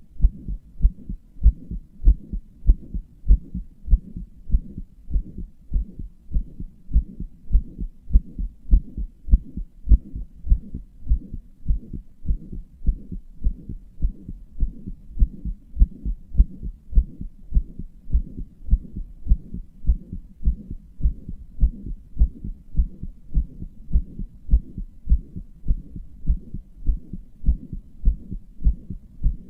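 A human heartbeat, which its owner says has a murmur: a steady, regular rhythm of low thumps.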